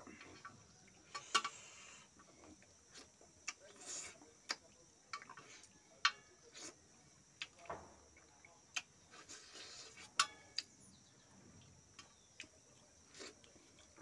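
Eating sounds: irregular sharp clicks and smacks of chewing and lips, with fingers picking fish off the bone on a steel plate.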